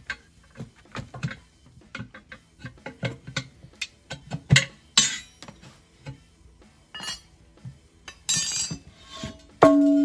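Steel pry bar clicking, knocking and scraping against an alloy wheel rim as a tire bead is pried off by hand. Near the end comes a loud metallic clang that rings on, as the bar is dropped onto the pavement.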